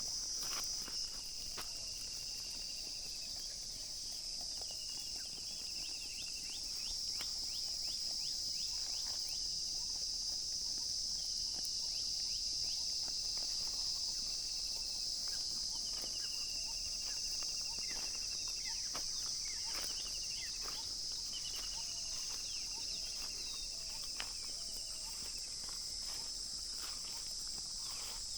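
Steady high-pitched insect chorus of crickets, with shorter trilling calls repeating every few seconds and scattered light clicks.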